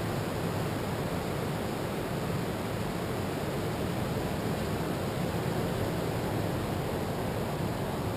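Steady, even rushing of ocean surf breaking along the beach, with no single wave standing out.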